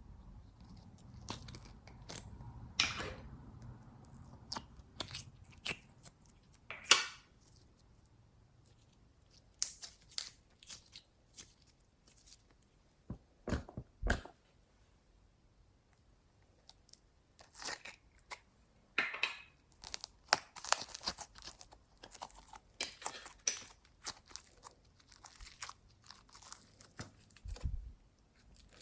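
Slime being worked by hand, making irregular crackles, pops and clicks with a few short pauses.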